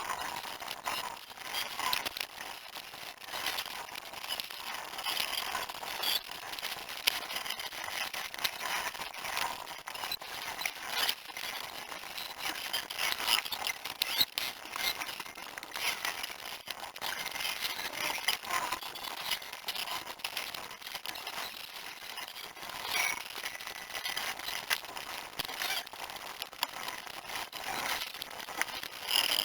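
Engine teardown work in a small shop, sped up many times over. It makes a dense, continuous jumble of quick clicks, clinks and scrapes, with chirpy high-pitched squeaks mixed in.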